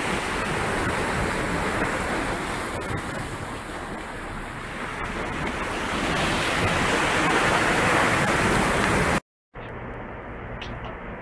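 Sea waves washing in, with wind on the microphone; the rush swells and eases. About nine seconds in it breaks off, and a much quieter background follows.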